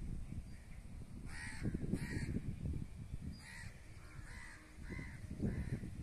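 Crows cawing, about five harsh caws in the first few seconds, over a low rumble.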